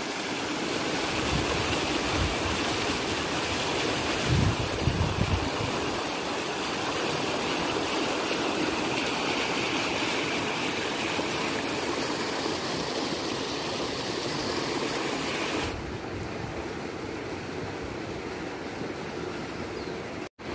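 Water of a small stream rushing and churning over stones, a steady hiss, with a brief low rumble on the microphone about four seconds in. Near the end the rush drops suddenly to a quieter, duller flow.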